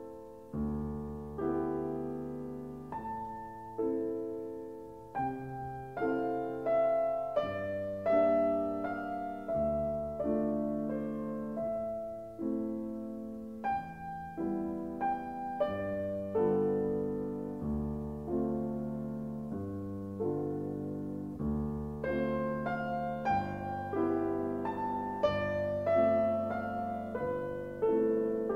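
Piano music, with notes and chords struck and left to ring out.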